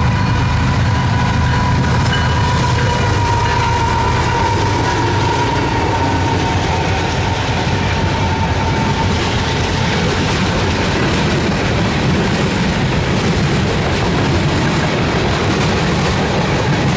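Freight train passing close: diesel locomotives running by, then a long line of open-top freight cars rolling past with wheels clacking over the rail joints. A high steady tone sounds through the first several seconds and fades out about six seconds in.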